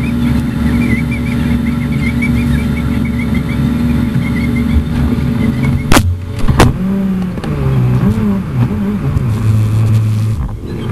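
Street traffic: vehicle engines running with a steady hum. Two sharp knocks come about six seconds in, half a second apart. After them a lower engine note wavers and steps down in pitch for a few seconds.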